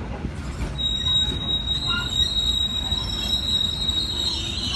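Passenger train coaches rolling slowly past at close range with a low rumble; about a second in a thin, steady high-pitched wheel squeal sets in and grows louder near the end.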